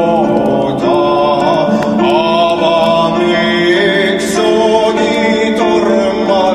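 Background music: a song with a sung melody over sustained chords.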